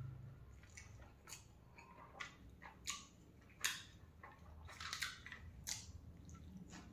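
Close-up eating sounds: chewing and lip smacks, with a few short, crisp clicks spaced about a second apart as rice and shredded singju salad are eaten by hand.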